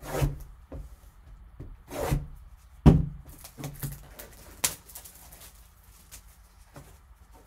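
Gloved hands handling a small cardboard card box: scattered taps, slides and rustles, with a sharp knock about three seconds in, then quieter rustling.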